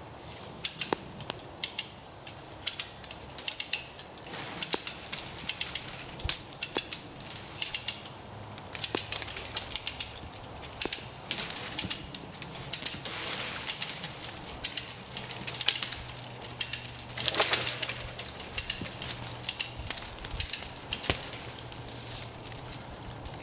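Hand-ratchet come-along being worked stroke after stroke, its pawl clicking in quick runs of sharp ticks with short gaps between strokes, as it tightens the chain and cable pulling on a rooted oak.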